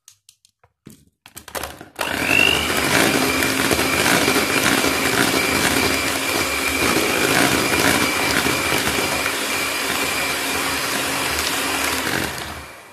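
After a few light clicks, an electric hand mixer starts about two seconds in and runs steadily at a constant speed, its beaters whirring through thick creamed butter, sugar and egg batter to blend in freshly added vanilla essence, and winds down just before the end.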